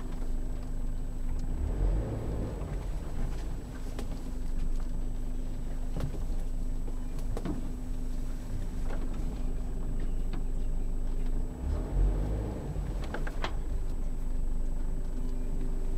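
Force Gurkha's diesel engine running steadily at low revs, heard from inside the cab, with a few sharp knocks and rattles from the vehicle over rough ground.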